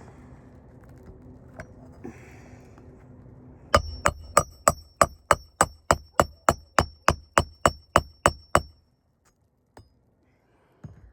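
Hammer driving a roofing nail into an asphalt shingle: a quick run of about eighteen blows, roughly three and a half a second, each with a short metallic ring. The hammering starts about four seconds in and stops near nine seconds.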